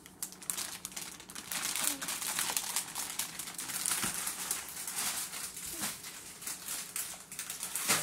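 Cellophane and clear plastic packaging crinkling and crackling continuously as it is handled.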